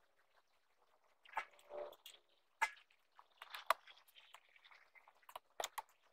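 A wood fire in a metal barrel crackling, with faint, irregular sharp pops and clicks and rustling as someone moves around it.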